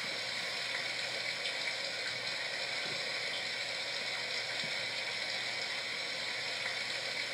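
A steady, even hiss that runs unbroken, with no distinct knocks or events.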